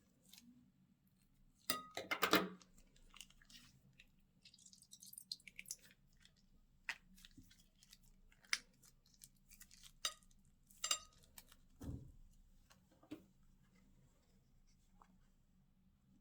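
Slime being mixed and stretched by hand: scattered sticky clicks and crackles, with a louder crackling burst about two seconds in and a dull thud near twelve seconds.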